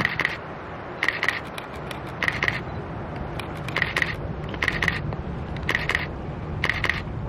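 Wheels of a slow-moving diesel locomotive train clicking over rail joints on a bridge. The short metallic click-clacks come in groups about once a second, each with a ringing tone, over the low steady hum of the locomotive engines.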